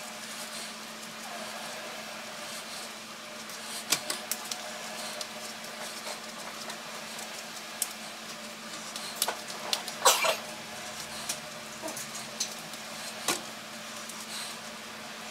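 Kitchen handling sounds while fish fillets are buttered by gloved hands: scattered soft clicks and knocks, with a brief cluster of sharper clicks about ten seconds in, over a steady low hum.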